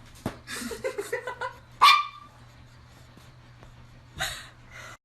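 A dog makes a quick run of short vocal sounds, then gives one loud bark about two seconds in.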